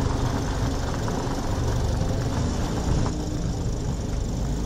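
Vehicle engines running steadily with a low rumble, from a working forklift and a semi truck.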